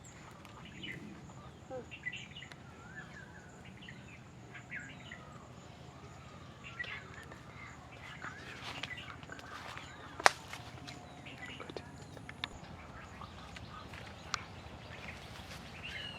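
Soft, scattered bird chirps and short calls over a steady low background hum, with a sharp click about ten seconds in.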